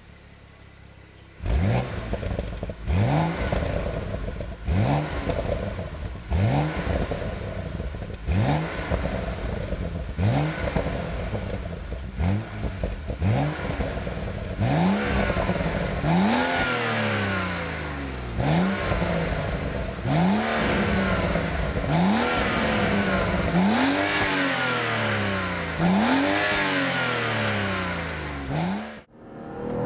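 BMW M135i's N55 3.0-litre turbocharged inline-six being blipped over and over, about one rev every two seconds, each a quick rise and fall in pitch through the exhaust; the revs climb higher in the second half, and the sound cuts off suddenly near the end.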